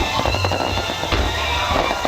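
Fireworks bursting and crackling in rapid, dense succession, with music playing alongside.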